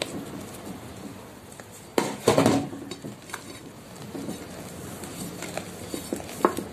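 Spoon and spatula clinking and scraping against a stainless steel cake ring and bowl as whipped cream is spooned onto a sponge layer and spread. A burst of louder knocks comes about two seconds in, then light scattered taps.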